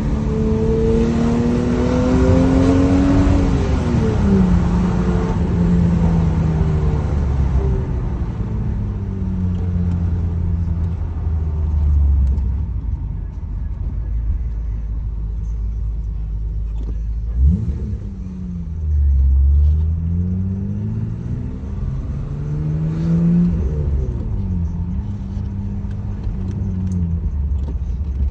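BMW E34 525i's M20B25 2.5-litre straight-six with its stock exhaust, driving: the engine climbs in pitch under acceleration for the first few seconds, drops sharply on a gear change, cruises, and then rises and falls again through several more shifts in the second half.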